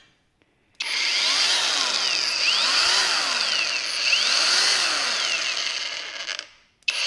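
Tanzu MT-21V cordless brushless angle grinder switched on at its higher speed setting: it starts suddenly about a second in and runs with a steady high whine. It winds down near the end, then starts again abruptly.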